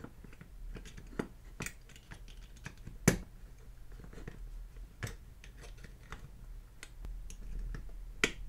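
Light scattered clicks and scrapes of the diecast metal bottom plate of a Matchbox King Size Scammell tipper truck model being worked loose by hand once its rivets have been drilled out, with a sharper click about three seconds in.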